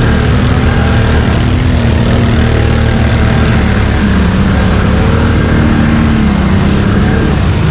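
ATV engine running under load while riding through wet sand and mud, its pitch wavering up and down with the throttle.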